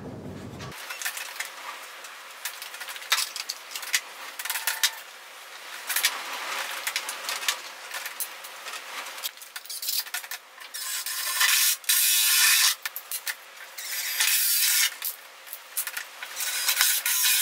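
Power tool cutting into a fibreglass door panel: a harsh, hissing rasp in stop-start runs, with the longer and louder runs in the second half.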